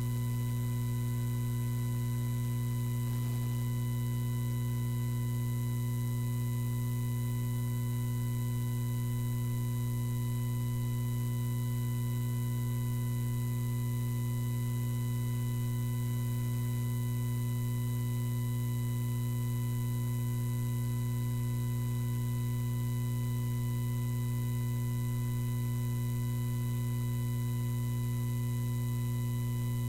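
Steady electrical mains hum, a low drone with thin higher tones over it, unchanging throughout and with no other sound.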